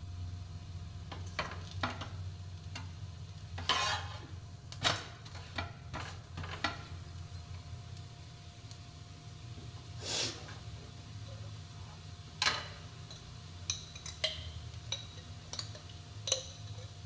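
Kitchen utensils and dishes clinking and clattering at irregular intervals, some clinks ringing briefly, over a faint steady low hum.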